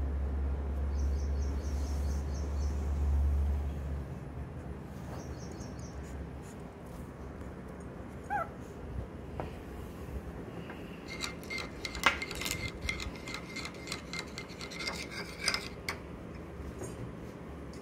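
Metal spoon stirring and scraping in a ceramic bowl of soft puppy food, with repeated clinks that ring, the loudest about twelve seconds in. A short puppy whine about eight seconds in, and a low rumble during the first four seconds.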